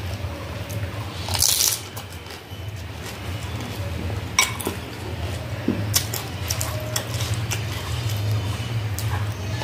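Eating sounds of fuchka (panipuri): a loud noisy mouthful about a second and a half in, then sharp clicks and clinks as the puris are picked up and dipped against the glass bowl and plate, over a steady low hum.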